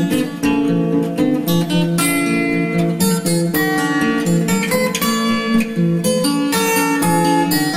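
Background music led by an acoustic guitar, with quick plucked notes and strummed chords.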